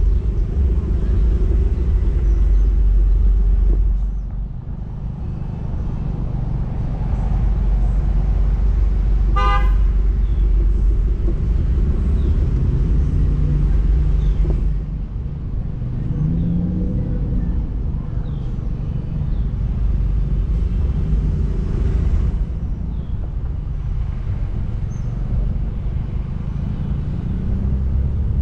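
Wind rumbling on the microphone and road noise from a slowly moving vehicle, with one short horn toot about ten seconds in.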